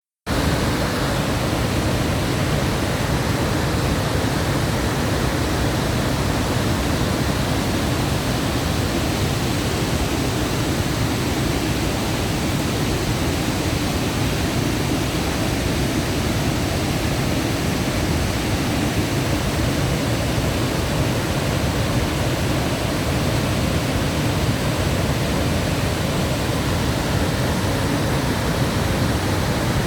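Iguazú Falls: the steady, unbroken rush of a massive waterfall, a dense wash of water noise heaviest in the low range.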